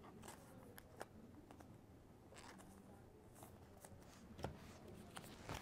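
Faint handling of a trading card and a clear plastic card sleeve: a few soft scattered ticks and rustles as the card is worked into the sleeve.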